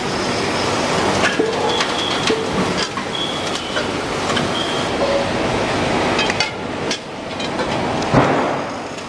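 Factory-floor clatter at a hydraulic press for bonding induction bottoms onto aluminium pans: metal pans clanking and briefly ringing as they are handled, over a steady machine din, with a heavy thump near the end.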